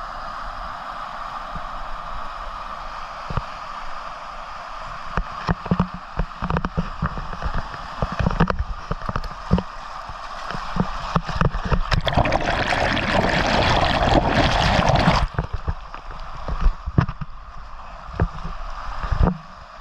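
Fast-flowing river rushing steadily, with many short thumps and knocks from the handheld phone close by. From about twelve seconds in the rush grows louder and fuller for about three seconds, then cuts off suddenly.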